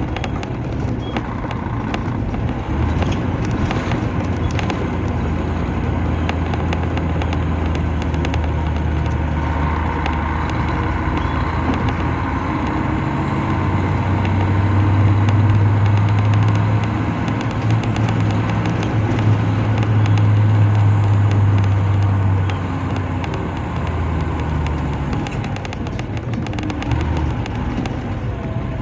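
Diesel engine of a Mercedes-Benz O500-RS coach (354 hp) running under way, heard from inside the coach. Its steady low hum rises in pitch and gets louder from about halfway through, holds for several seconds, then drops back toward the end.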